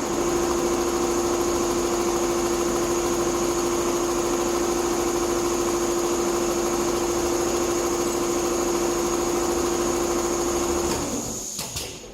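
Multihead industrial sewing machine for leather running steadily with a constant hum and a high whine, dying away near the end.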